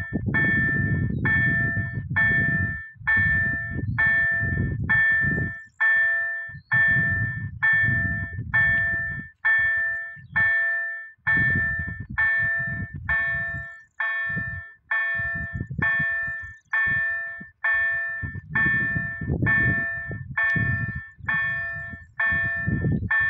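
Level-crossing warning bell ringing in steady strokes, about two a second, each ringing out before the next, sounding while the crossing's red lights flash to warn of an approaching train.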